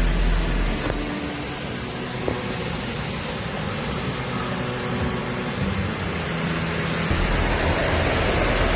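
Heavy rain and rushing floodwater on a street: a steady hiss, with a low rumble that drops out about a second in and comes back about seven seconds in.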